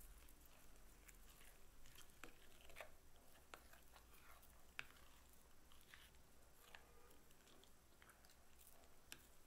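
Faint, irregular crackling and soft clicking of crunchy slime with foam beads being stirred and folded with a silicone spatula in a glass dish, with one sharper click about halfway through.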